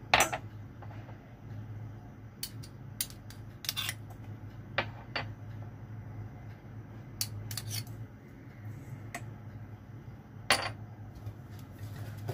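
Kitchen utensils clicking and clattering against dishes in scattered sharp knocks, the loudest at the very start and about ten seconds in, over a steady low hum.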